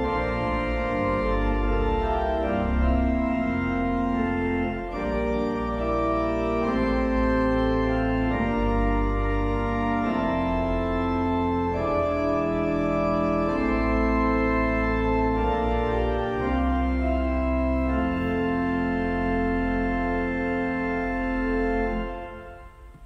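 Pipe organ playing slow, sustained chords over deep pedal bass notes; the final chord is released near the end and dies away.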